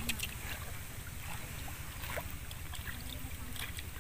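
Water sloshing and dripping in short splashes, over a steady low rumble of wind on the microphone.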